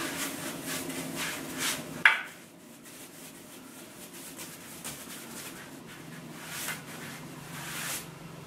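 Paintbrush swishing varnish onto pine bed-frame rails, about three quick strokes a second at first, then slower, softer strokes. A single sharp clink about two seconds in is the loudest sound.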